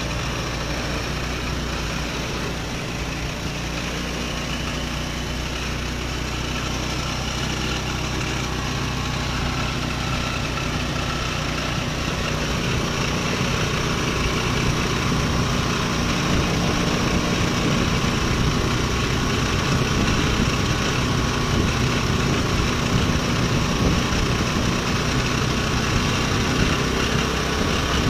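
Scooter engine idling steadily while a syringe of carbon-cleaning additive feeds into its intake hose. It grows somewhat louder from about halfway through.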